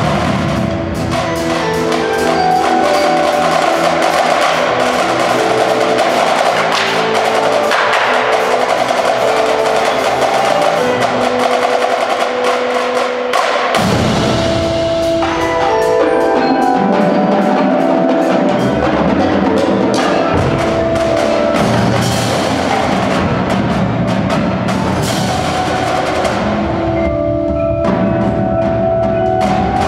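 A high school percussion ensemble playing: marching snare, tenor and bass drums over sustained notes from mallet keyboards such as marimba and vibraphone. The low bass notes drop out sharply about halfway through and come back a couple of seconds later.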